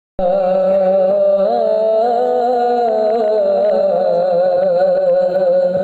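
Naat intro: a sustained, slowly wavering vocal drone, like layered humming voices, that starts abruptly at the very beginning and holds steadily.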